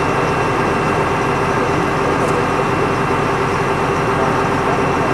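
A fire engine's engine running steadily at the scene of the fire, with a constant high whine over its drone.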